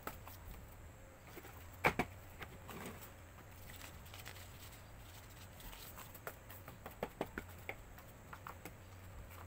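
Scattered light clicks and taps of small objects being handled, two louder ones close together about two seconds in and a quick run of several near the end, over a faint steady hum.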